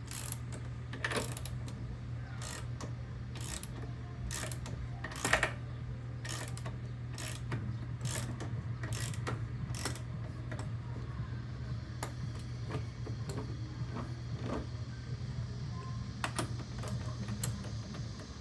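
Repeated sharp mechanical clicks from hand work on a lawnmower wheel, coming one or two a second and thinning out after about ten seconds, over a steady low hum.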